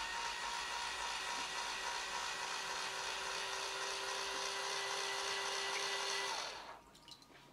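Electric drill running at a steady speed with its attachment turning in a tank of water, a steady high whine; it stops about a second before the end.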